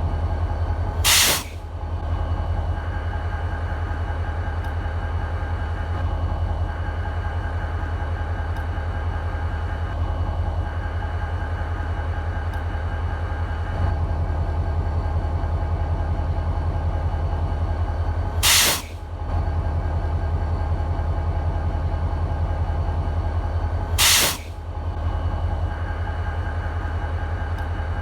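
EMD SD40-2 locomotive's 16-cylinder two-stroke diesel idling with a steady low throb. Three short, loud bursts of hissing air cut across it: one about a second in, and two more a little over five seconds apart later on.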